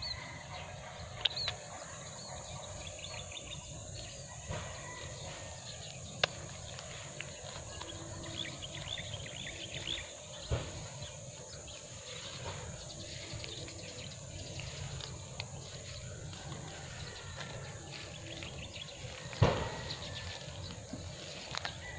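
Open-field outdoor ambience with a steady high hiss and birds chirping at times. A few sharp knocks stand out, the loudest near the end.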